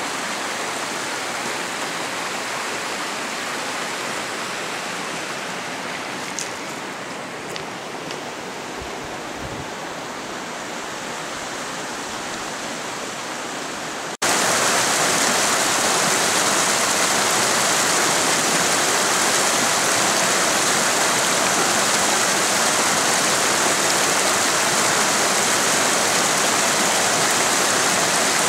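Steady rushing of a rocky mountain creek. About halfway through there is an abrupt cut, and the rushing water comes back louder and hissier.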